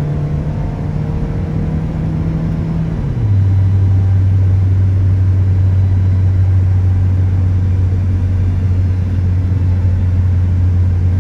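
Steady low drone of a moving car's engine and road noise. About three seconds in it drops abruptly to a lower pitch and gets louder, then holds steady.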